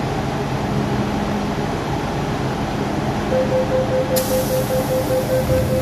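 Door-closing warning on an MTR M-Train: rapid steady beeping starts a little past halfway, over the hum of the train standing at the platform, and a hiss comes in about a second later.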